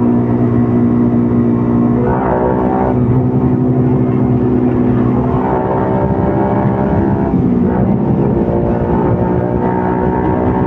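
CFMOTO Papio 125 mini-bike's small single-cylinder engine running while riding, its pitch shifting several times as the throttle changes.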